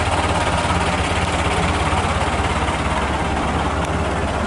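Engine of a vintage front-engined half-cab single-deck bus running steadily and low-pitched as the bus moves slowly past.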